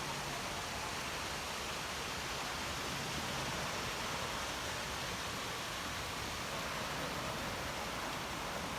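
Steady rushing hiss of a rain-fed waterfall pouring off a desert cliff, an even wash of water noise at a constant level.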